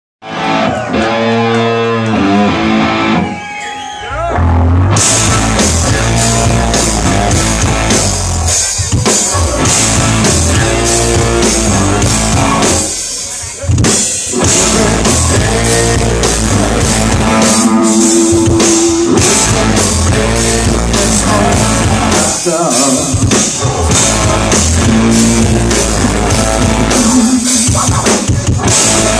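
Rock power trio playing live: electric guitar, bass and drum kit. A pitched riff plays alone for the first four seconds before the full band comes in with the drums, and the band stops briefly about thirteen seconds in.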